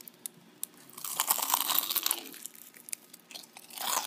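Crispy fried chicken leg crunching as it is bitten into: a loud, crunchy burst about a second in that lasts about a second, then chewing, with another crunch near the end.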